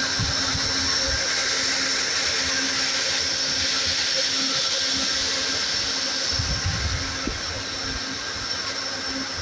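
Amtrak GE P42DC Genesis diesel locomotives standing at the platform with their engines idling: a steady whirring hum with a thin high whine.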